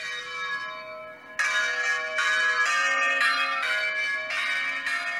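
Bells ringing: a ringing tail fades through the first second, then the bells are struck again from about a second and a half in, several strikes in a row, each one ringing on.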